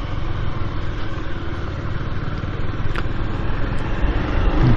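Motorcycle engine running steadily, a low pulsing rumble with an even rushing noise over it.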